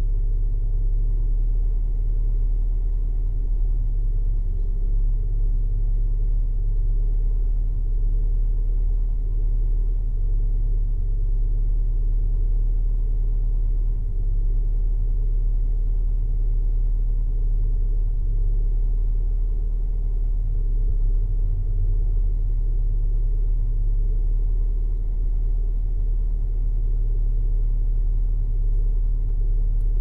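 Engine of a 1986–87 Ford Fiesta 1.1-litre hatchback idling steadily, heard from inside the cabin: an even low hum with a faint steady whine above it.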